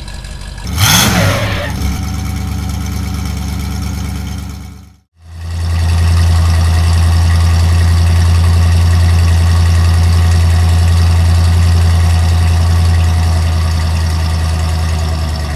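Monster truck engine sound effect: idling with a short rev about a second in, fading out just before the midpoint, then after a moment of silence a louder, deeper engine running steadily.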